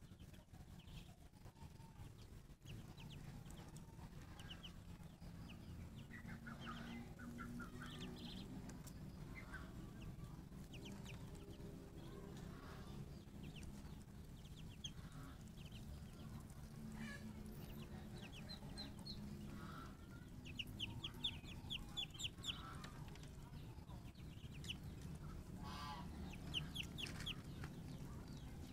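Ducklings peeping: short, high calls in quick runs, growing busier near the end, over a low steady hum.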